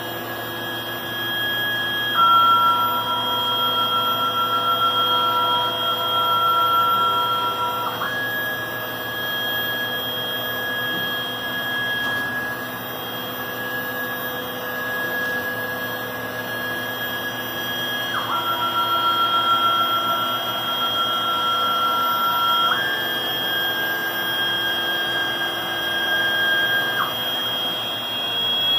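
CNC router table running: the steady drone of its 10 hp vacuum hold-down pump and dust collector under a high whine from the machine that jumps down and back up in pitch several times as the program runs.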